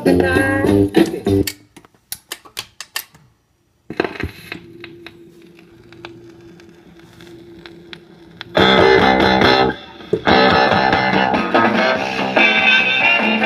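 Music playing on a 1957 RCA 8-EY-4DJ 45 rpm record player stops about a second and a half in, followed by a run of sharp clicks and a moment of silence. A quiet stretch with a steady low hum and scattered ticks follows, then a new guitar song starts loud about eight and a half seconds in.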